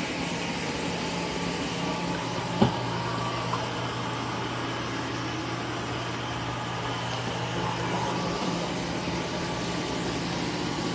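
eufy C28 robot vacuum and mop running as it vacuums and mops the floor: a steady motor hum, with a short click about two and a half seconds in, after which a second, lower hum joins.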